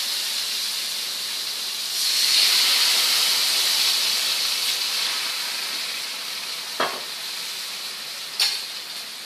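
Chicken cutlets sizzling in a skillet with wine: a steady frying hiss that swells about two seconds in and then slowly fades. Near the end, two sharp clicks about a second and a half apart, like a utensil knocking on the pan or a dish.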